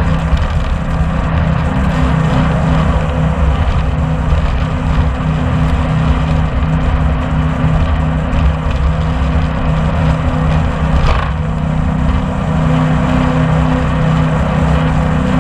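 Large passenger jet boat's engines running steadily at speed, with a steady low hum under a rush of wind and water over the microphone.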